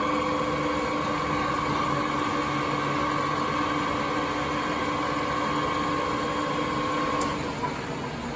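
Sharp 1860C lathe running quietly with the spindle at about 1350 rpm: a steady hum with several even tones from the drive. About seven seconds in there is a click, after which the tones stop and the sound drops.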